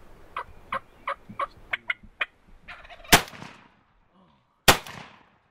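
A string of short turkey notes, about three a second, then two loud shotgun blasts about a second and a half apart, fired at a strutting gobbler and missing it.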